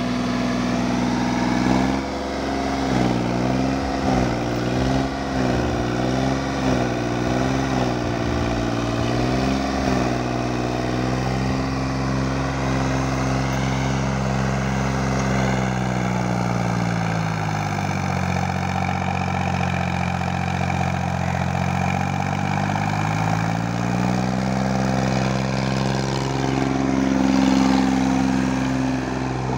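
Escort tractor's diesel engine working under load as it drags an implement through sand. The engine speed rises and falls about once a second at first, drops well down for several seconds about midway, then picks back up and runs steady.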